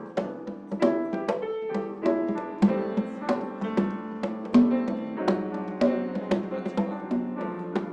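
Instrumental music: pitched notes and chords over drums and percussion, with frequent sharp hits.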